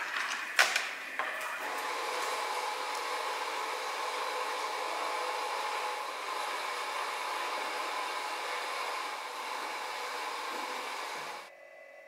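A steady whirring noise like a running machine or blower, after two or three sharp knocks in the first second or so, cutting off abruptly near the end.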